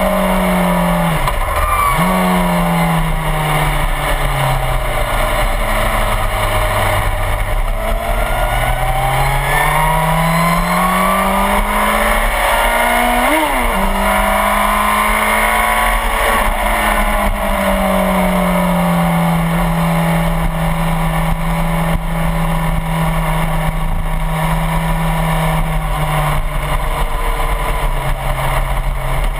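Suzuki GSX-R1000 sportbike's inline-four engine heard from on the bike at track speed, its pitch falling as the rider slows for corners and rising again on the throttle out, with a quick sharp rev and drop near the middle, then holding steady at high revs. Wind rushes over the microphone throughout.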